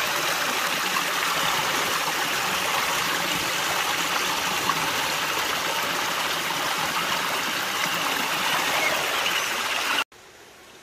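Shallow creek water rushing and splashing over rocks close by, a steady rush. About ten seconds in it cuts off suddenly to a much quieter background.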